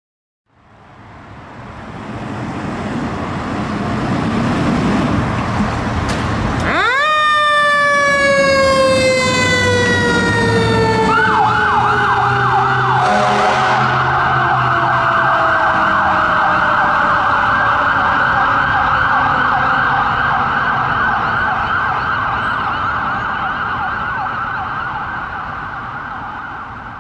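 Fire engine setting off, its engine noise building. About 7 s in a siren winds up sharply and then falls slowly in pitch. From about 11 s an electronic siren sounds a rapid yelp.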